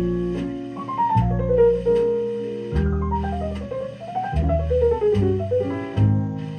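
Instrumental music played back through JBL C40 horn loudspeakers driven by a Scott 272 tube amplifier: deep bass notes changing every second or so, quick rising and falling melodic runs above, and regular drum strikes.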